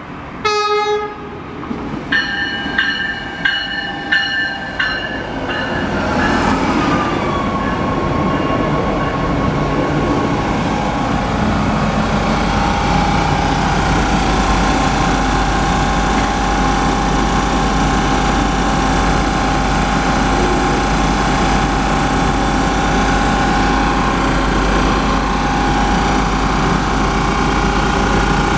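Stadler GTW diesel light-rail train arriving. A short horn blast is followed by a few seconds of rapid bell strokes, then a falling whine as it slows to a stop. After that comes the steady hum and rumble of its diesel power module idling alongside.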